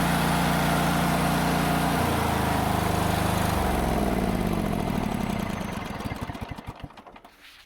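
Kawasaki FH601V V-twin engine of a John Deere GT245 lawn tractor running steadily. Its speed drops in two steps about two and three and a half seconds in, then it slows and stops about seven seconds in. The engine has been running rich and misfiring, which the owner suspects is a bad ignition coil.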